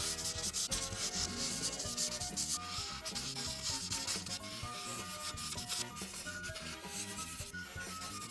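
An Ohuhu art marker scratching across paper in quick back-and-forth strokes as it fills in a coloured border, with faint background music underneath.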